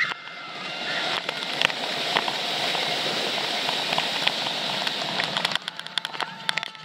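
Wind rushing over a ride camera's microphone as a Mako hyper coaster train speeds down its first drop and over the next hill, with scattered clicks and rattles. About five and a half seconds in, the rush drops off and a quick run of clicks takes over.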